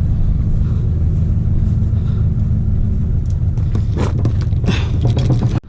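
Diesel engine idling with a steady low rumble, with a few short metallic clicks and rattles about four to five seconds in.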